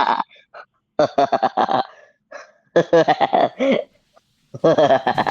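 A person's wordless vocal sounds in three bursts of about a second each, the pitch bending and wavering throughout.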